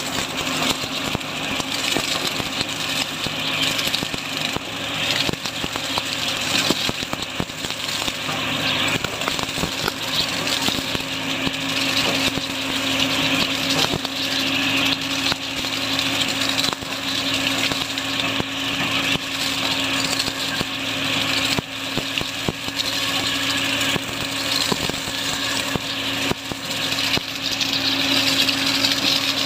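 Tractor engine running with a steady hum as a tractor-mounted sugarcane harvester cuts standing cane, with continuous crackling and snapping of stalks and leaves going through the cutter.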